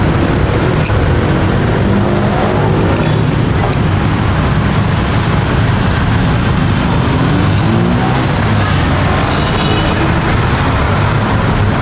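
Steady street traffic noise with engines passing, and a few light clicks from a knife working into a durian's spiky husk.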